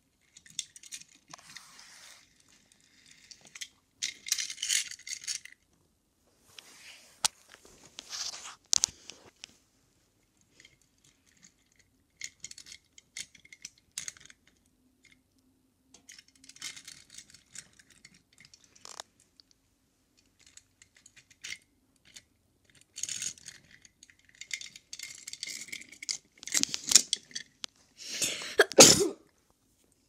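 A plastic toy car being pushed and handled on a stone countertop: scattered scrapes, clicks and rustles, with louder rubbing and knocking right against the microphone near the end.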